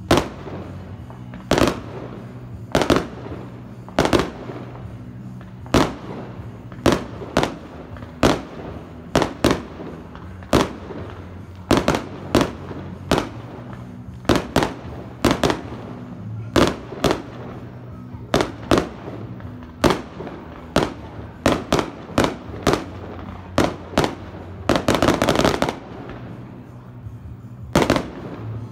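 Fireworks display: aerial shells bursting in a quick, irregular series of sharp bangs, one or two a second, with a dense volley of rapid bangs about a second long near the end.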